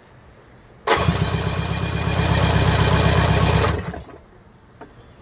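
A 1975 Mercury 850 outboard is cranked on its electric starter for about three seconds during a compression test, with a gauge screwed into one cylinder. The cranking starts suddenly about a second in and stops abruptly; the cylinder reads a strong 175 PSI.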